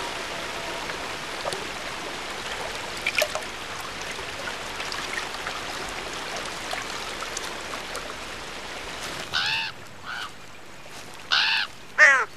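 Shallow stream running over stones, with a few faint splashes. About three-quarters of the way in, a raven starts cawing: about four harsh caws in the last few seconds.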